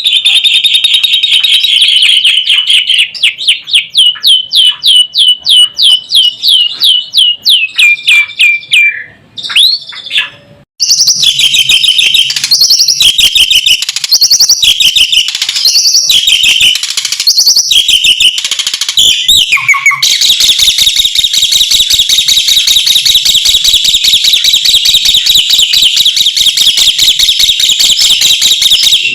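Asian pied starling (jalak suren) singing loudly. It opens with a fast run of repeated notes, pauses briefly, moves into varied phrases, and goes into a long, dense, rapid chatter for the last third.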